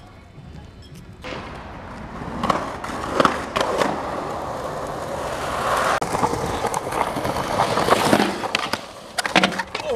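Skateboard wheels rolling on concrete, starting about a second in, with several sharp clacks of the board striking the ground.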